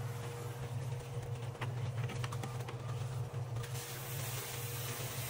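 A machine running steadily with a low hum, an engine or motor, with a few faint clicks over it.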